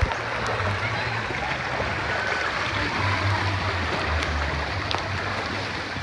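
Steady rush of flowing water in a lazy river swirling around an inflatable tube, heard through a phone in a waterproof bag, with an uneven low rumble underneath.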